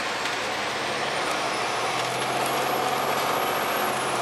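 Cummins ISL8.9e inline-six diesel engine of an Alexander Dennis Enviro500 double-decker bus running under way, heard from inside the bus. A thin high whine climbs a little about a second in and then holds.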